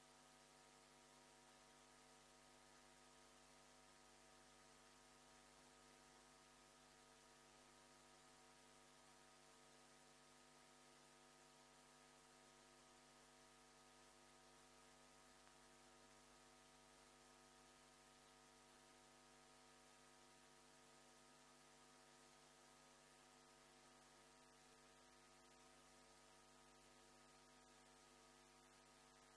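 Near silence: a faint, steady electrical hum over hiss.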